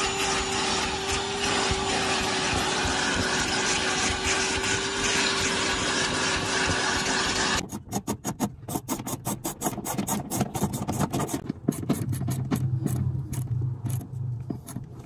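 Vacuum cleaner running with its hose nozzle on carpet: a steady rush with a hum through it that stops suddenly about seven and a half seconds in. Then a run of quick clicks from a socket ratchet working on a seat mounting bolt.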